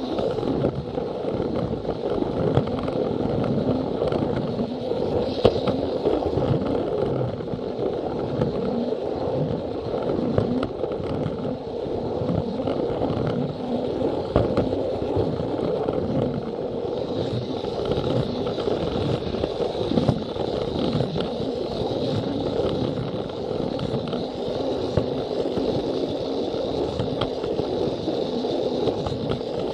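Plarail battery-powered plastic toy train running along plastic track: a steady rolling clatter of small wheels, with many quick clicks over the rail joints. A thin high whine joins about halfway through.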